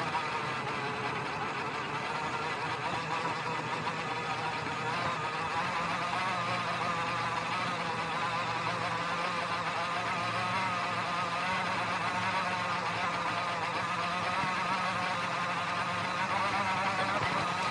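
Traxxas TRX-4M Defender RC crawler's electric motor and geartrain whining steadily as it drives over grass and dirt, the pitch wavering up and down with the throttle. Heard close up from a camera mounted on the truck's body.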